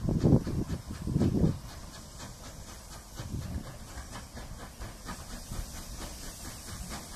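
Saddle tank steam locomotive NCB No. 49 approaching under steam, its exhaust beats coming evenly at about three a second with a hiss of steam. There are two louder low rumbles in the first second and a half.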